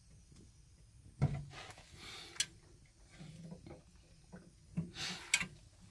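Quiet handling sounds: a few soft knocks and clicks with short rustles as a hand touches a plastic pressure fermenter.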